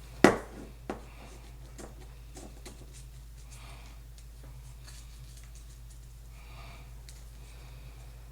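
Handling sounds of parts and tools during a car door speaker install: a sharp knock about a quarter second in, a smaller knock just under a second in, then scattered faint clicks and rustling over a low steady hum.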